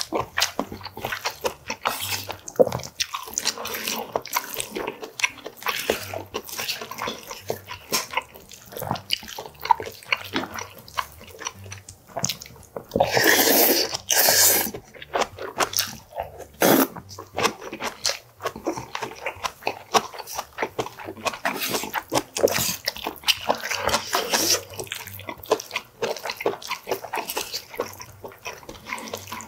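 Close-miked wet chewing and lip-smacking of mouthfuls of rice, with a wooden spoon clicking and scraping against brass bowls. About 13 seconds in comes a longer, louder slurp.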